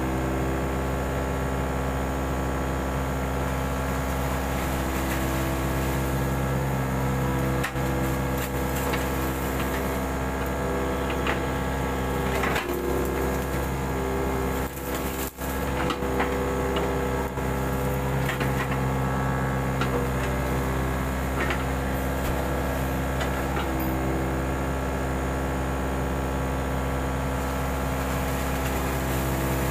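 Mini excavator's engine running steadily under work, with a few scattered knocks and clanks from the machine.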